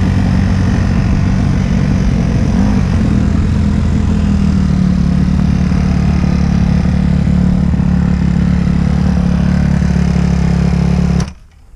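Four-stroke single-cylinder Honda dirt bike engine idling steadily, then stopping abruptly near the end.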